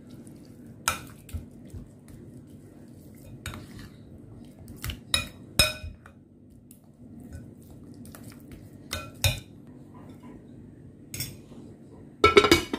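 Spoon stirring a thick beef marinade in a glass bowl, with scattered clinks of the spoon against the glass. Near the end comes a louder burst of glass-on-glass clatter as a glass lid is set on the bowl.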